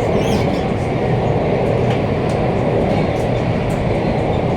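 Alstom Metropolis C751A metro train running between stations, heard from inside the carriage: a loud, steady rumble of wheels on rail with a few faint clicks. The wheels under this car are reported as worn.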